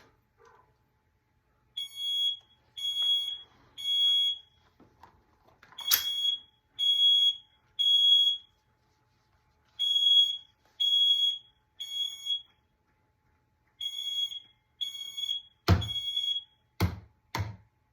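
Kidde smoke alarm sounding its high-pitched three-beep evacuation pattern, four rounds of three beeps with a pause between, set off by aerosol test smoke sprayed into it. A sharp click sounds about six seconds in, and a few loud knocks come near the end.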